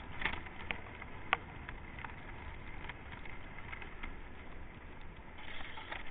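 Inline skate wheels rolling on asphalt, a steady rolling noise, with scattered light clicks and taps and one sharper tap about a second in.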